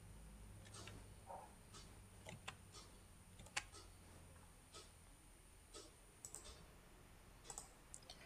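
Faint, irregular clicks of a computer mouse being clicked and scrolled, over near-silent room tone, with one sharper click about three and a half seconds in.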